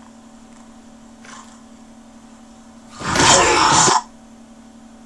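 A person clearing their throat once, harshly, for about a second, starting about three seconds in, over a steady low hum.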